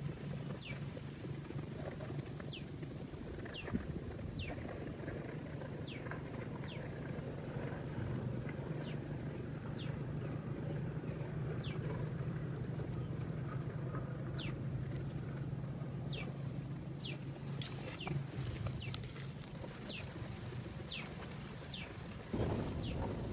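A short high chirp falling in pitch, repeated about once a second, over a steady low hum, with a few sharp clicks and a brief rustle near the end.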